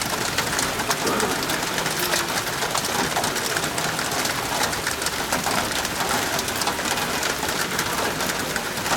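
Steady heavy rain, a constant hiss with fine crackling drops.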